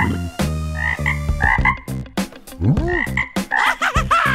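Frog croaks, repeated in quick short calls, with sharp clicks and a few sliding whoops that rise and fall in pitch.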